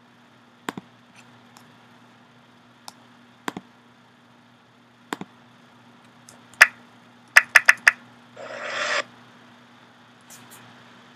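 Computer mouse clicking: a few single sharp clicks spaced a second or two apart, then four quick clicks, followed by a short rushing noise, over a steady low electrical hum.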